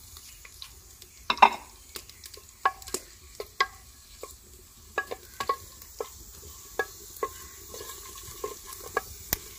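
A wooden spatula stirs sliced onions frying in oil in a clay handi, giving irregular knocks and scrapes against the pot over a light sizzle. The loudest knock comes about a second and a half in.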